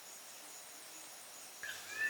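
Faint, steady chirring of insects such as crickets in the background. Near the end a louder, high chirping call starts.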